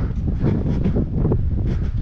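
Wind buffeting the microphone: a low, uneven rumble that rises and falls in gusts.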